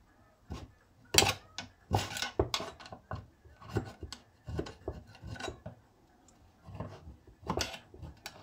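Screwdriver scraping and clicking against the inside of a cast-metal chainsaw crankcase in short, irregular strokes, cleaning out debris.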